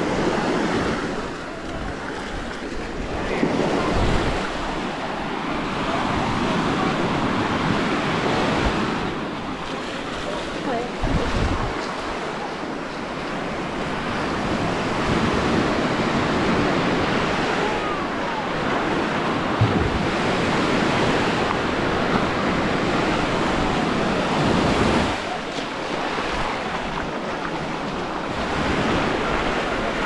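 Small surf breaking and washing up on a sandy shore, a steady rushing wash, with wind now and then buffeting the microphone.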